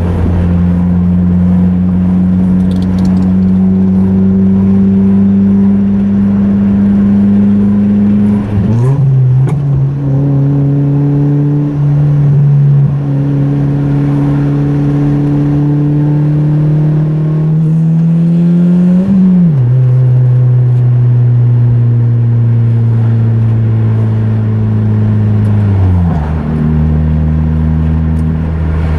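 A 2004–2006 Mazda 3's 2.3-litre four-cylinder engine droning while the car is driven, heard from inside the car. The engine note jumps up in pitch about nine seconds in and climbs slowly. It drops sharply at a gear change just after the middle, then sinks gently and drops again near the end.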